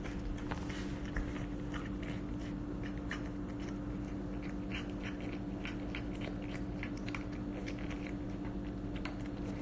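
A cat eating raw chicken from a stainless steel bowl: quick, irregular wet chewing and biting clicks, over a steady low hum.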